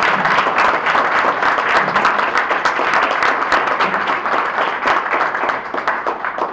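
Audience applauding: a dense round of clapping from a banquet crowd that fades out near the end.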